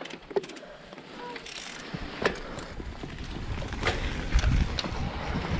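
Mountain bike setting off on a gravel trail: tyre and bike noise with sharp clicks, and a low rumble of wind on the bike-mounted camera's microphone that builds from about two seconds in.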